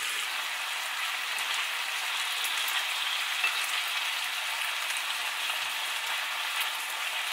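Thin slices of sauce-marinated beef frying in a nonstick frying pan, sizzling steadily with many small crackles and pops.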